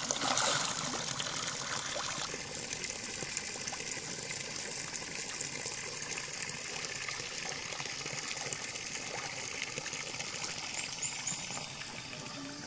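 Pond water splashing and trickling: a louder splash right at the start, then a steady trickle and lapping of water.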